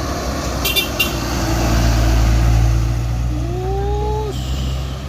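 Heavy truck's diesel engine running under load, a steady low drone that grows louder about two seconds in and then eases. A brief high hiss comes about a second in, and a short tone rises and holds for about a second near the end.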